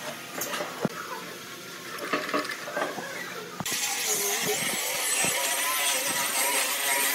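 Handheld angle grinder with a sanding pad sanding a pine board. Its motor cuts in suddenly about halfway through and runs steadily, the whine wavering in pitch as the pad is pushed across the wood. Before that, a few scattered light knocks and clicks.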